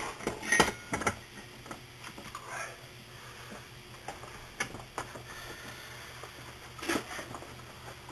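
Scattered light clicks and knocks of metal hand tools and bicycle crank parts being handled and shifted, a few seconds apart, with a slightly louder knock about half a second in and another near the end.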